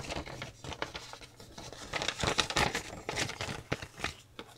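Paper leaflets rustling and crinkling as they are handled and unfolded, in a run of irregular crackles.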